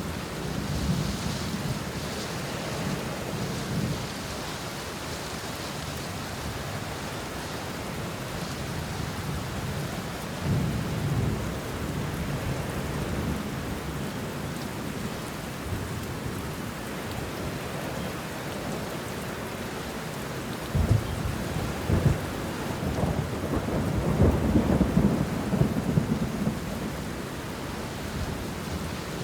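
Steady rain falling on banana leaves and bush, with thunder: low rumbles near the start and about ten seconds in, then two sharp claps around twenty-one seconds in followed by a long rolling rumble.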